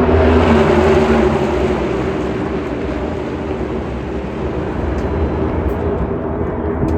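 NASCAR Cup Series stock cars' V8 engines running on track, a loud steady drone that is strongest in the first second and then eases slightly.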